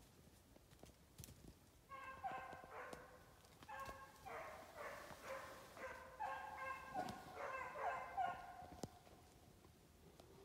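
Hunting hounds baying on the trail of a snowshoe hare, faint and well off. Several long, drawn-out voices overlap from about two seconds in and die away near the end.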